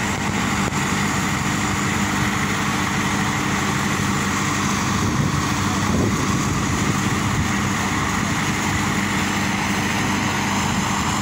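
Diesel engine of a Mercedes-Benz Actros crane truck running steadily at a constant speed, powering its truck-mounted loader crane as the crane lifts a steel sign beam.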